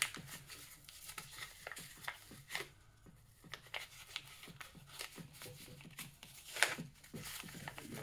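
Faint rustling and crinkling of plastic packaging being handled, with scattered small clicks and one sharper click about six and a half seconds in.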